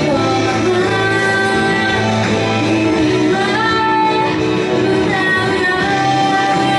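A woman sings a pop ballad into a microphone, holding long notes and gliding between pitches, over steady instrumental accompaniment.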